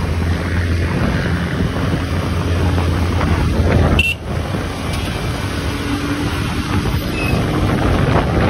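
Wind buffeting the microphone over the steady running and road noise of a vehicle moving through city traffic, with a brief dip about four seconds in.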